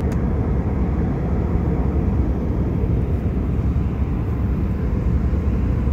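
Steady low rumble of airliner cabin noise in flight, engines and airflow, as the jet descends on approach. There is a faint click right at the start.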